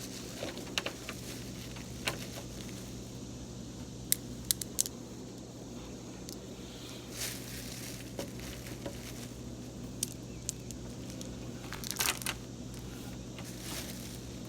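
Small plastic glitter containers and a plastic bag being handled: scattered sharp clicks and short crinkling rustles, with a cluster of clicks near the middle and another near the end, over a steady low hum.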